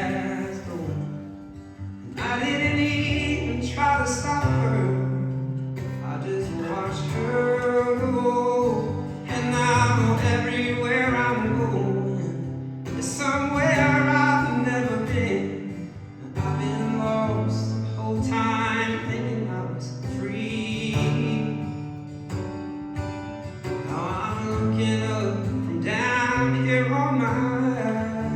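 Live song performance: a man singing with guitar accompaniment over held low bass notes.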